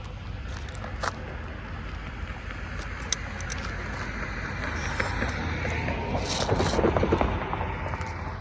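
Vehicle noise outdoors: a steady low rumble with wind buffeting the microphone, a few sharp clicks, and a louder rattling pass around six to seven seconds in.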